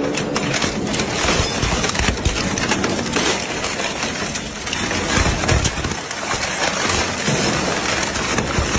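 Industrial shredder tearing up a motorcycle: dense cracking and crunching of metal and plastic between the rotors, with heavy low thuds at irregular moments.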